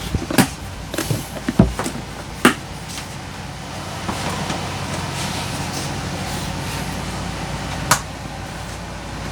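Handling noises: a few sharp clicks and knocks of containers and lids being moved, the loudest near the end, over a steady background hum.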